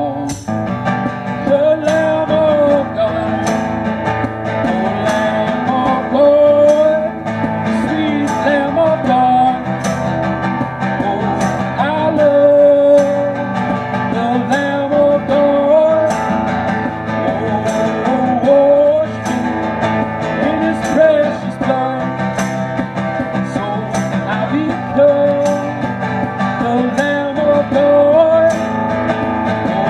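Instrumental break in a country-style gospel song: a sliding lead melody over guitar accompaniment and a steady light beat.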